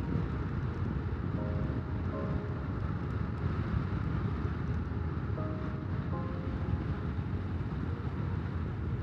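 Motorcycle riding at steady speed: continuous wind rush over the on-board microphone with a low engine and road rumble underneath.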